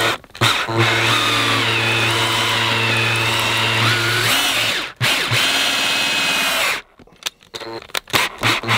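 Power drill spinning a plug-cutter bit into a running shoe's rubber and foam heel to cut out a core sample. The motor runs at a steady pitch for about four seconds, pauses briefly, runs again for under two seconds and stops, with a few short blips near the end.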